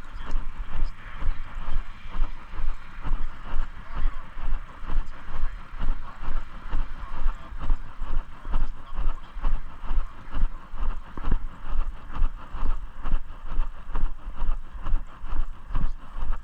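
Footsteps of a person walking at a steady pace, just under two steps a second, each step a low thump, over a constant hiss.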